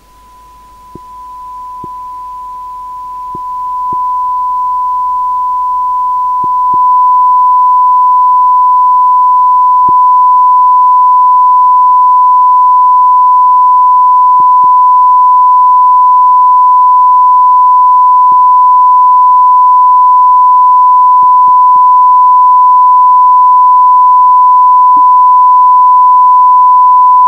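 A steady 1000 Hz sine tone from the simulation's listener audio. It starts quiet and grows louder in steps over the first seven seconds or so as the amplitude is turned up, then holds loud and unchanging.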